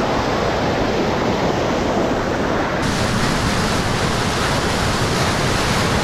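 Water rushing fast down a channel dug through beach sand: a loud, steady roar of rapids. About three seconds in the rush turns brighter and hissier.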